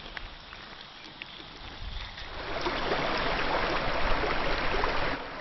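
Stream water rushing over rock, a steady rushing noise that swells in about two seconds in, after a quieter stretch of faint hiss with a few light ticks.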